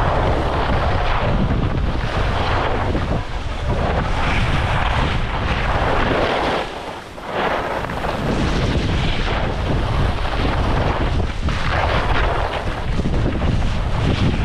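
Wind rushing over the microphone of a skier moving downhill, a heavy low buffeting, with the hiss and scrape of skis on packed groomed snow swelling and fading with the turns. About seven seconds in it briefly drops away.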